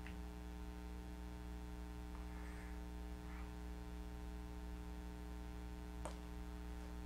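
Steady low electrical hum made of several steady tones, with two faint short rustles about two and a half and three and a half seconds in and a single short click about six seconds in.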